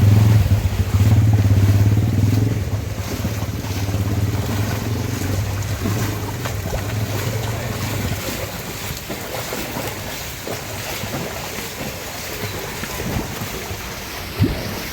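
A boat engine running steadily, fading out about halfway through and leaving the rush of water and wind.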